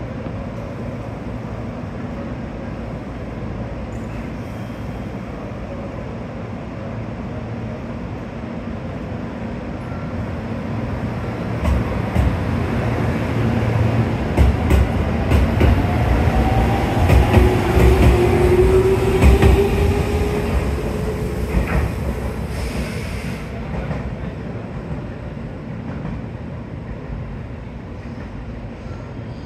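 JR Central 313 series electric train standing with a steady hum, then pulling away. About halfway through it speeds up with a rising whine from its inverter-driven traction motors, and its wheels click over the rail joints as the cars pass. The sound is loudest during the pass and then fades as the train leaves.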